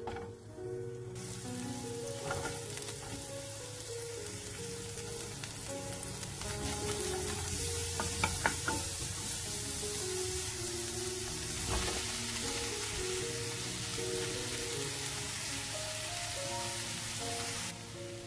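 Sliced onion and green onion sizzling in hot oil in a non-stick frying pan as they are stir-fried, a steady hiss that starts about a second in and drops away just before the end. A few sharp clicks come about eight seconds in.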